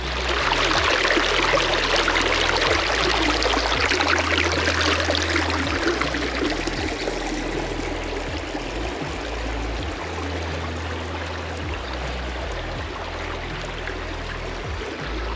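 Shallow creek running and splashing over rocks, louder for the first several seconds, then softer and steady.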